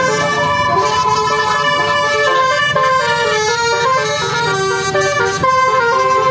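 A bus's multi-tone musical air horn playing a tune of held notes that step up and down in pitch, over the low rumble of the bus's engine.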